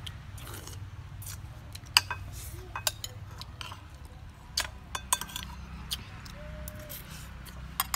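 Metal spoons clinking and scraping against ceramic plates and a soup bowl as people eat, in scattered irregular clinks, the sharpest about two seconds in.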